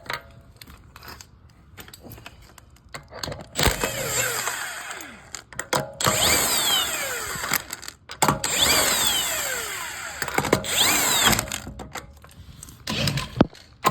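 A power tool spinning the rear wheel's lug bolts out. It runs in about four bursts of a second or two each, its pitch falling within each burst. A few clicks and knocks follow near the end as the bolts and wheel are handled.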